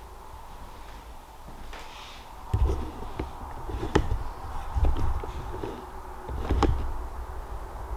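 Footsteps on old wooden floorboards: a few heavy footfalls at uneven intervals, the first about two and a half seconds in, after a quiet stretch of low room hum.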